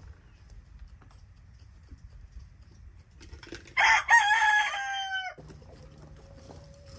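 A barred rooster crows once, close and loud, starting about four seconds in and lasting about a second and a half, the held note sagging a little in pitch before it cuts off.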